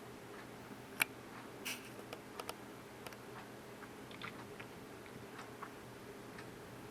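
Quiet room with a faint steady hum and scattered small clicks and taps, the sharpest about a second in.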